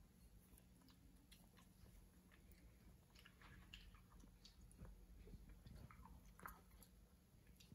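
Faint sounds of a child eating noodles: soft chewing and mouth noises with scattered small clicks.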